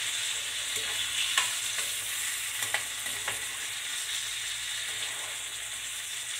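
Diced potatoes, onions and tomato sizzling in hot oil in a skillet, with a steady hiss. They are stirred with a metal spoon that clicks and scrapes against the pan several times.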